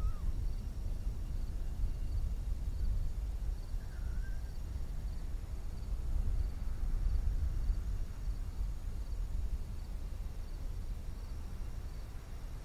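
Crickets chirping steadily, about two short chirps a second, over an uneven low rumble. A single brief bird call about four seconds in.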